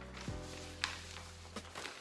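Background music: a beat with a deep sustained bass and held chord tones that shift every half second or so, with a few sharp percussive hits.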